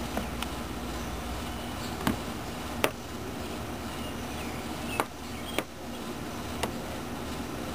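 A small bird pecking and striking at its reflection in glass: about seven sharp, irregular taps over a steady low background hum.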